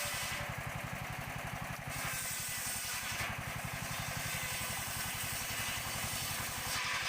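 An engine idling steadily, an even fast low pulse with faint hiss above it.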